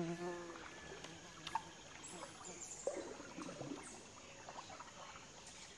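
An insect buzzing close by for about the first half-second, then faint trickling and dripping water with a few small splashes.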